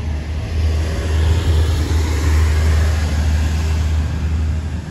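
Street traffic noise: a vehicle passing, its sound swelling about a second in and fading near the end, over a steady low rumble.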